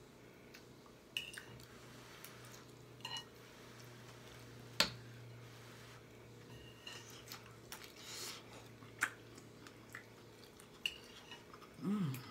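Close-miked eating of lobster tail: chewing and mouth smacking with scattered small clicks and clinks of utensils and shell, one sharp click about five seconds in. A brief voiced sound near the end.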